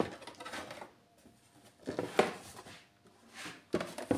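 Handling noise on a desk: a few light knocks and rustles, clustered about two seconds in and again near the end, with quiet between.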